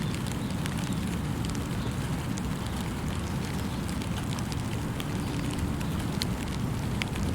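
Steady rain falling, with scattered individual drops ticking sharply over a constant low rumble.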